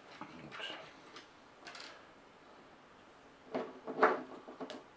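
Light clicks and taps of small plastic model parts being picked up and set down on a cutting mat. Near four seconds in comes a louder cluster of scrapes and clacks as the screw cap of a glass bottle of liquid plastic cement is opened.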